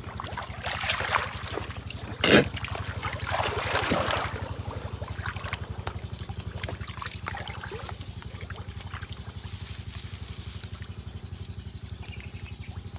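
A small engine running steadily with a fast, even beat. Water splashing and sloshing over the first four seconds, with the loudest splash about two seconds in, as someone wades.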